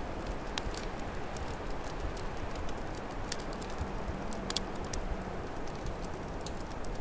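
Open wood fire crackling, with irregular sharp snaps and pops, over a steady low rush of winter storm wind.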